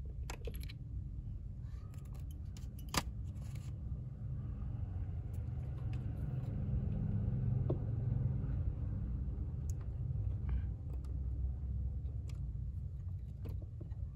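Small plastic clicks and taps as a blade fuse is worked into a car's under-dash fuse box with pliers and fingers, one sharper click about three seconds in, over a steady low rumble.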